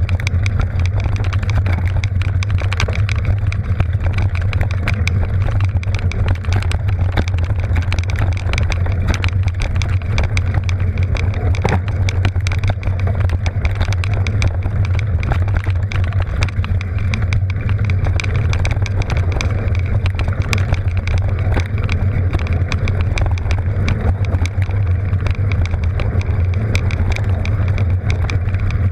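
Mountain bike rolling fast over a dry dirt singletrack, heard from a GoPro on the bike. There is a steady low rumble throughout, with constant rapid clatter and ticking from the bike and tyres over the rough ground.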